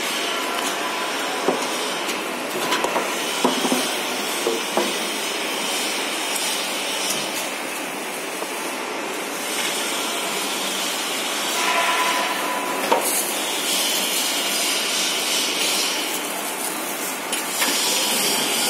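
Automatic tape-roll shrink-wrap packing machine running: a steady mechanical whir with scattered sharp clicks and knocks from the wrapping mechanism, and a louder stretch a little past the middle.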